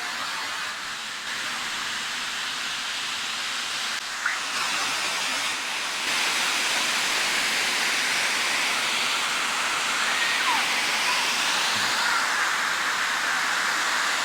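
Waterfall rushing steadily, an even hiss of falling water that gets louder about six seconds in.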